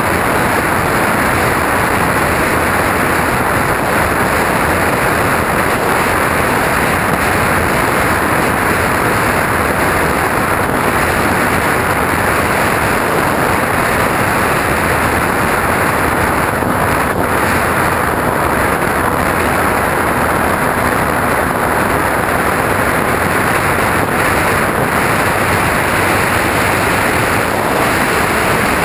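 Steady, loud rushing noise of a radio-controlled model aeroplane in flight, heard from a camera riding on it: airflow over the microphone mixed with the drone of its motor and propeller.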